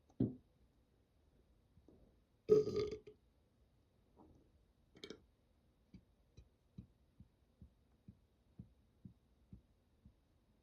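A person burping: a short low burp right at the start, then a louder, longer burp about two and a half seconds in.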